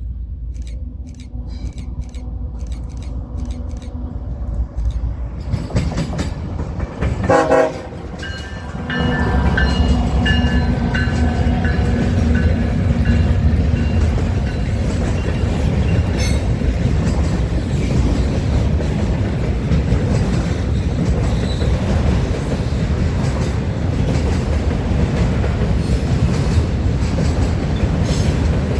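Train passing close by: a short horn blast about seven seconds in, then a loud steady rumble of rolling railcars from about nine seconds on, with wheels clicking over the rail joints.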